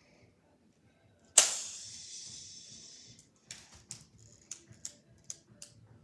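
Light-up toy snowflake wand going off: a sudden hissing swish about a second and a half in that fades away over about two seconds, followed by a string of short, high clicks.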